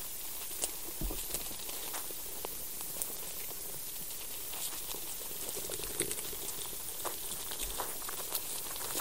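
Underground soil recording: a steady high hiss with scattered small clicks and scratches at an irregular pace, the sounds of soil life moving below ground.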